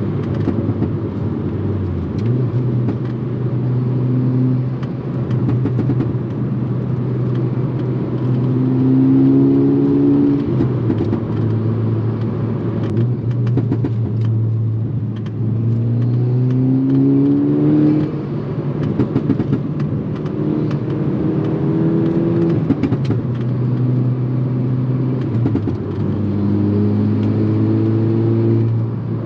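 Volkswagen Mk6 Golf R's turbocharged 2.0-litre four-cylinder, fitted with an aftermarket turbo-back exhaust, pulling up through the revs several times. Each pull rises in pitch and breaks off at a gear change, over a steady engine drone.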